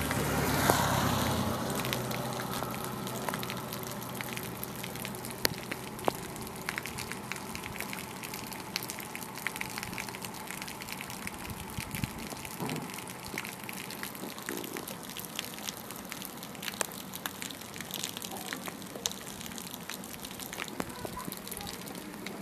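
Steady rain falling on a wet paved street: an even hiss with scattered sharp drop ticks, and a louder rushing swell about a second in.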